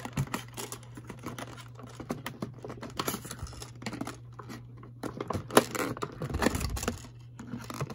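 Clear plastic blister packaging crinkling and crackling in irregular bursts as it is handled and pulled apart to free a toy's stand, busiest about five to six seconds in, over a steady low hum.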